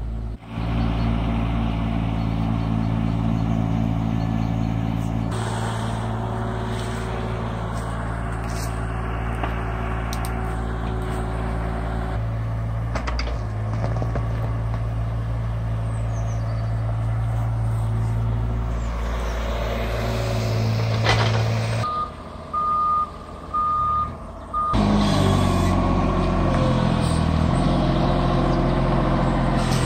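Yanmar mini excavator's diesel engine running steadily while it digs soil. About 22 s in, a reversing alarm beeps several times at one pitch, then a Moffett truck-mounted forklift's engine runs with shifting pitch.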